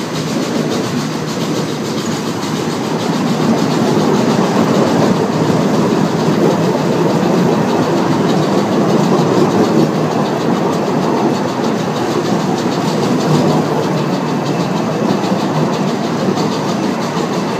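Rumble and clatter of a small-gauge steam train's wheels running on the rails, heard from aboard the train. It grows louder a few seconds in as the train rolls onto a wooden-decked bridge.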